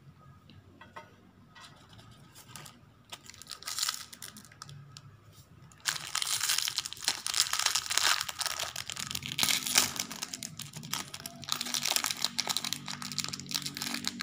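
Crinkly pink plastic wrapper of a toy blind bag being handled and torn open by hand: faint rustles and clicks at first, then loud continuous crinkling and tearing from about six seconds in.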